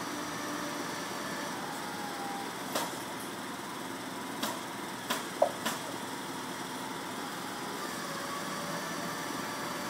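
An engine running steadily, with five sharp knocks between about three and six seconds in. The loudest knock comes just past five seconds and rings briefly.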